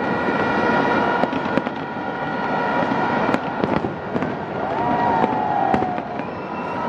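A fireworks display with repeated bangs and crackles over a dense, steady din. A falling whistling tone comes about five seconds in.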